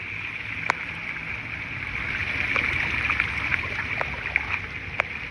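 Steady hiss of falling rain, with a few sharp taps of drops striking close to the microphone and a low rumble underneath; it swells a little in the middle.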